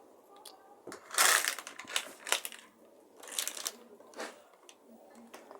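A burning pile of matches crackling, with sharp clicks and several short noisy bursts in the first four seconds.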